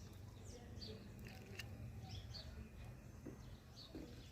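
Small birds giving short, high chirps at irregular intervals, several times a second at the busiest, faint over a low steady hum.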